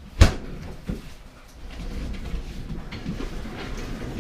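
A loud sharp knock, a smaller one just after, then a steady low rumbling scrape as a heavy fridge freezer is slid across the floor.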